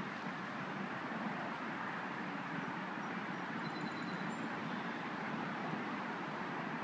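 Steady hum of distant road traffic, an even wash of noise with no change in level.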